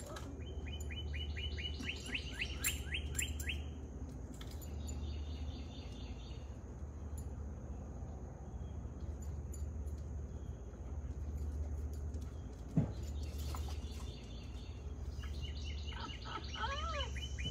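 A songbird singing quick series of short, down-sliding chirps in several bursts, over a steady low hum. A single sharp knock comes near the end.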